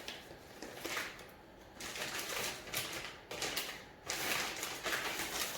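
Packaging being handled and opened, with irregular bouts of crinkling and rustling.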